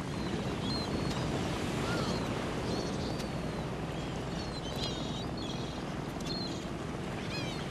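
Steady seaside background noise with small birds chirping now and then, short high calls scattered through it.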